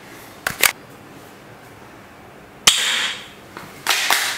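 Golden toy P1911-style pistol firing water gel bullets: two short clicks, then two sharp shots about a second apart, each a snap that trails off briefly.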